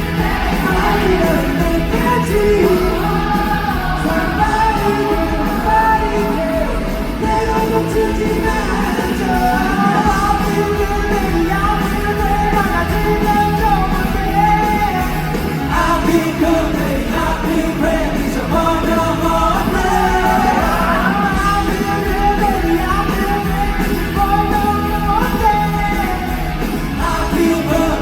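Live rock band music with singing, loud and continuous.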